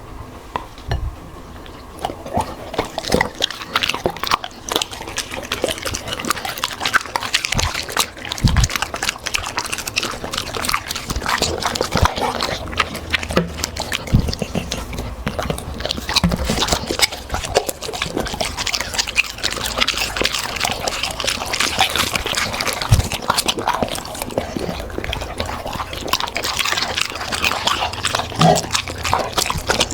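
A Labrador and a golden retriever chewing crunchy dry food: dense, irregular crunching and crackling, starting about two seconds in.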